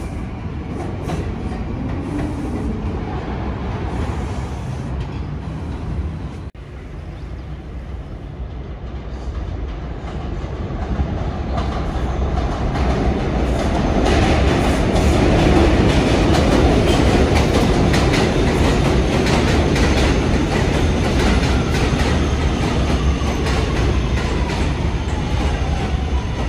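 New York City subway train running on the rails, its wheels clacking over rail joints, growing louder from about halfway as the train comes close. A faint falling whine appears near the end.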